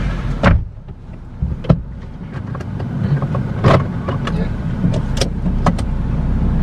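Car running at low speed, a steady low hum, with several sharp knocks and clicks through it, the loudest about half a second in and near the middle.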